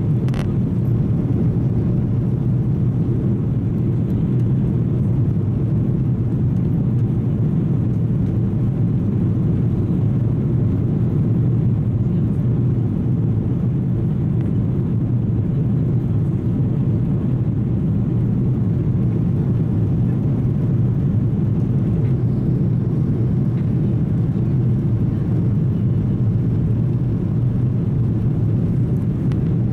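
Airbus A330 cabin noise during the climb after takeoff: a steady low rumble of engine thrust and rushing air heard from inside the cabin, unchanging throughout.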